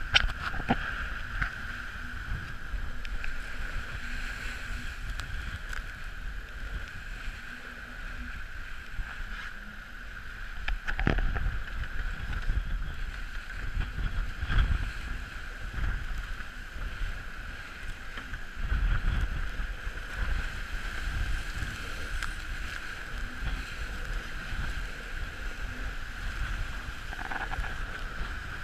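Rushing water and wind as a Dragonfly trimaran sails fast through choppy water, with spray hitting the boat and the wind buffeting the microphone. It surges louder twice, about a third of the way in and again past halfway, with a couple of sharp knocks, and a steady high-pitched hum runs under it all.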